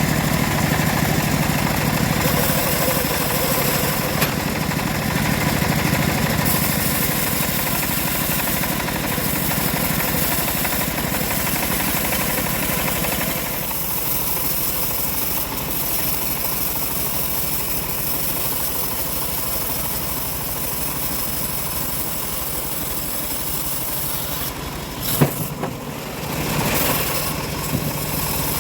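Homemade bandsaw mill running as it saws a teak log, a steady mechanical drone. The sound drops a little in level about halfway through, and there is a single sharp knock near the end.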